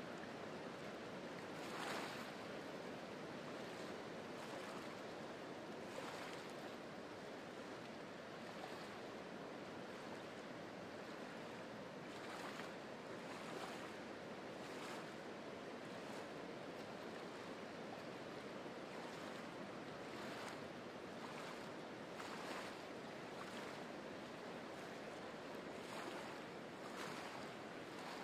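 Small waves lapping against and washing over a shelf of beach rock at the water's edge: a steady wash of water with brief splashes every few seconds.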